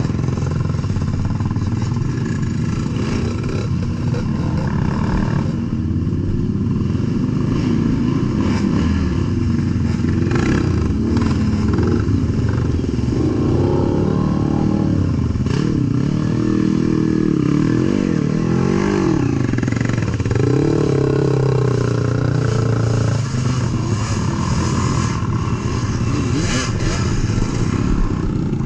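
ATV engine running under changing throttle, its pitch rising and falling as it revs up and eases off, with a few knocks over the engine.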